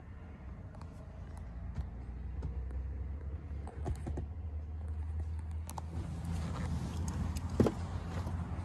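Cupra Formentor idling with a steady low hum, heard from inside the cabin, with light clicks and rustling of handling. A single thump comes about three-quarters of the way through.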